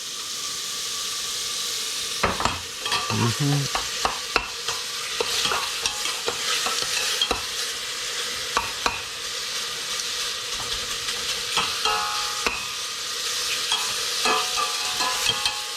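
Bacon sizzling in its rendering fat in a pan, with frequent short clicks and scrapes from a utensil stirring the pieces and breaking them apart.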